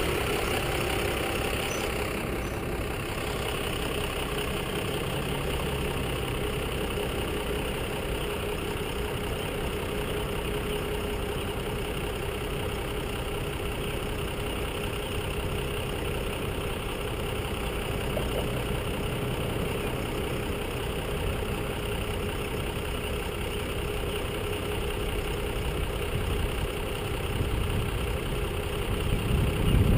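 Box truck's engine idling steadily close ahead in stopped traffic, with other vehicles idling nearby; the low rumble grows a little louder near the end.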